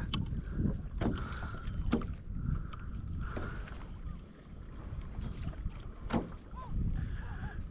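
Small waves slapping and lapping against a sea kayak's hull, with a few sharp slaps and wind on the microphone. Seabirds call now and then over the water.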